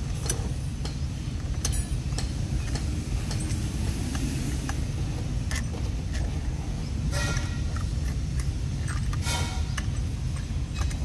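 A steady low rumble with scattered light clicks of metal bolts being fitted by hand into a plastic pipe flange, and two short scraping rustles, one past the middle and one near the end.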